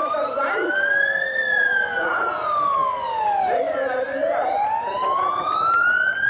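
Siren of a rally course car wailing slowly: its pitch rises, falls back over a couple of seconds, and rises again.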